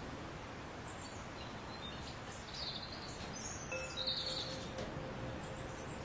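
European goldfinch giving short, high chirps and twitters over a steady background hiss. About two-thirds of the way in, a steady ringing tone starts and carries on.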